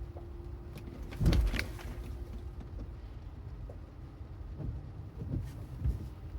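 Inside a Tesla driving on a wet road: a steady low rumble of road and tyre noise with no engine sound. About a second in there is one louder thump, and a few soft knocks come near the end.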